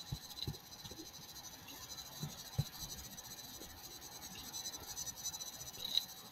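Faint room tone with a steady thin high whine and hiss from the recording chain, broken by a few soft low knocks.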